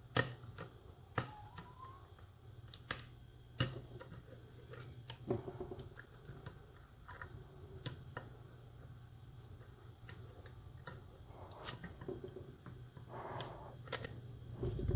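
Irregular small sharp clicks and ticks of a lock pick and tension wrench working the pins of a challenge lock: the picker is probing pin by pin and feeling for set pins. A faint steady low hum underlies it.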